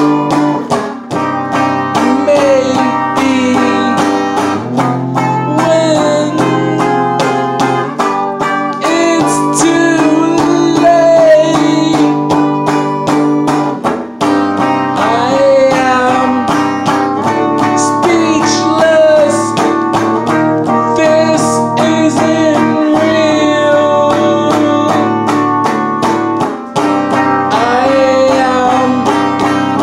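A rock song: a man singing over an electric guitar, with a low bass line changing every few seconds and a steady drum beat.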